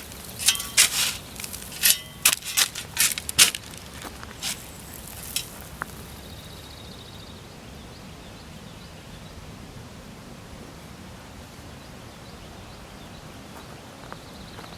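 A quick, irregular series of sharp crunches and clicks, a few a second, that stops about five seconds in, leaving only faint outdoor background.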